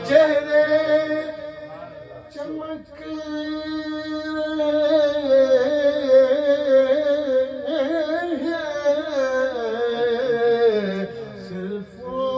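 A man singing an Urdu naat unaccompanied into a handheld microphone. He draws out long held notes with wavering ornamented runs, with a brief pause for breath a little over two seconds in.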